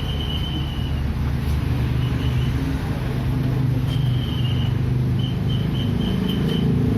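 A motor vehicle engine running steadily with a low, even hum, over which short high chirps repeat, more often in the second half.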